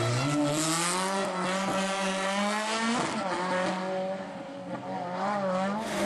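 Rally car engine under hard acceleration: the revs climb steadily for about three seconds, drop sharply at a gear change, then rise and fall in quick swings.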